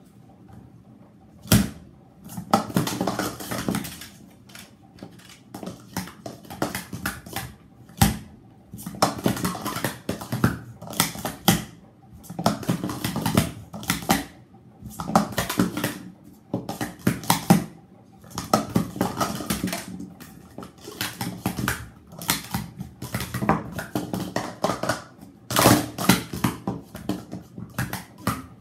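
Speed Stacks sport-stacking cups clattering on a stacking mat as they are rapidly stacked up and down: runs of quick plastic clacks a second or two long, broken by short pauses.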